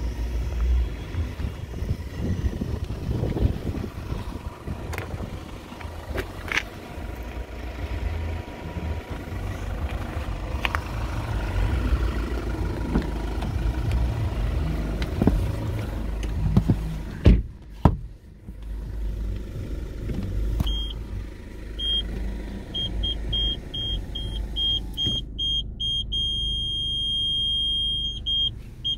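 A car door shuts with a heavy knock about 17 seconds in. Then a newly fitted rear parking-sensor buzzer starts beeping, a high single-pitched beep that repeats faster and faster until it becomes a continuous tone for about three seconds, which signals an obstacle very close behind the bumper, before it breaks back into quick beeps. A low steady rumble runs underneath.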